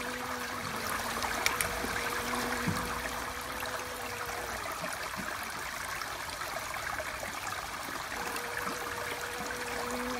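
A bee's wing buzz, a low steady hum, heard at the start, fading out before the middle and returning near the end, over a steady rushing hiss like running water. A couple of sharp ticks come about a second and a half in.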